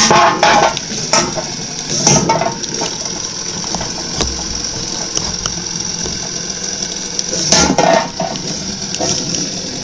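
Hexbug Tombstone toy combat robot's small electric spinner motor whining steadily at a high pitch, with bursts of clattering as its 3D-printed spinning blade strikes a soda can and the arena. The strikes come right at the start, about two seconds in, and near the end.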